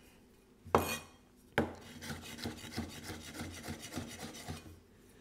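Chinese cleaver chopping red pepper on a round wooden chopping block: two firm chops about a second in, then a quick run of light, rapid chops as the pepper is diced.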